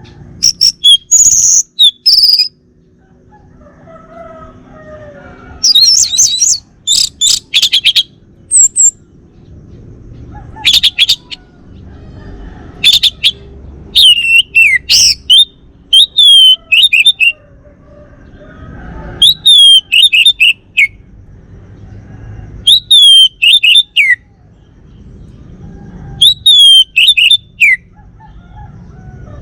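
Male orange-headed thrush singing loud, separate phrases of whistled notes. In the second half the same phrase repeats every three to four seconds: a note sliding downward, then a quick run of short notes.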